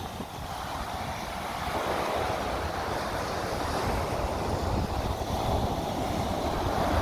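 Ocean surf washing on the shore, swelling about a second and a half in, with wind buffeting the microphone.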